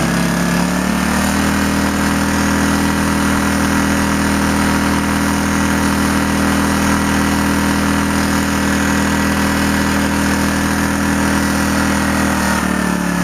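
ETQ IN1800i inverter generator's engine running steadily. Its speed rises slightly about a second in and drops near the end.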